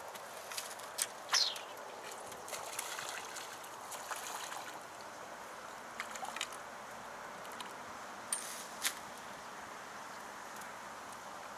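A hooked crucian carp splashing at the water surface as it is played on the rod, with a few sharp clicks scattered through.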